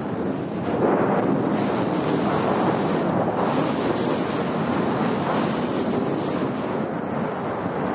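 Skis sliding and scraping over hard-packed snow on a downhill run, a steady rushing rumble, with wind on the microphone and brief higher hisses as the edges bite.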